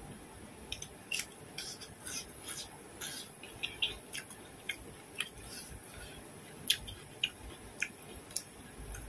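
Close-up eating sounds: chewing with irregular crisp clicks and smacks as grilled bird is bitten and eaten by hand, one sharper click about two-thirds of the way through.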